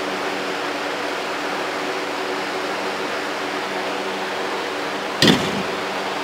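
Steady background hiss and hum throughout. About five seconds in there is one sharp knock of a steel bolt against a metal worktable.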